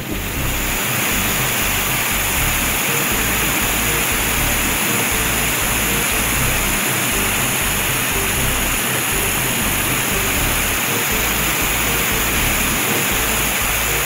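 A steady rushing hiss of water spraying from a fire-truck hose, a cartoon sound effect, over background music with a steady low beat.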